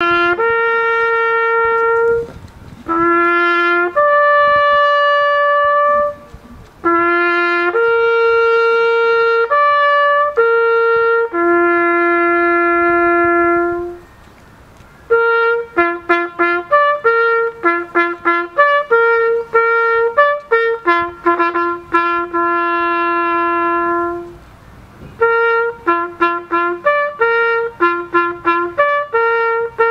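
A trumpet playing a slow solo melody: long held notes in the first half, then quicker short repeated notes from about halfway, with brief breaks between phrases.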